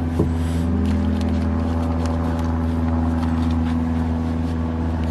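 Steady low drone of a car, heard from inside the cabin while driving, with one engine tone climbing briefly about a second in.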